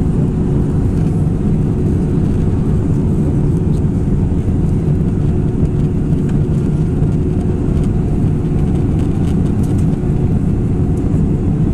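Steady cabin noise of an Airbus A319 airliner in flight on its descent: a low, even rumble of engines and airflow with a steady hum running under it.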